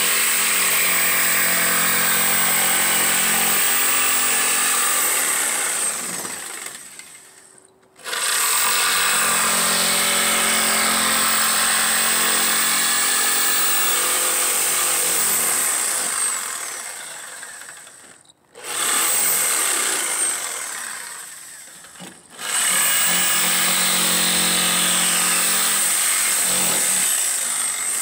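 Corded jigsaw cutting through plywood, running steadily with a high whine. Three times the motor is let off and winds down, about six, seventeen and twenty-one seconds in, then starts again sharply and carries on cutting.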